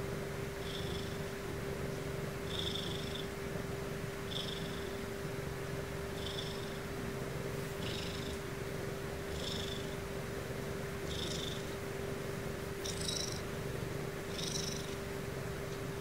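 Ragdoll cat purring steadily, with a strong high nasal sound on each breath, about every second and a half.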